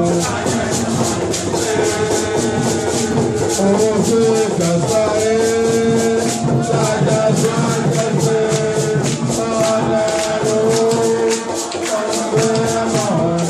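A man's voice singing a chant into a microphone, held notes amplified over a loudspeaker, with shaker rattles keeping a steady, fast beat.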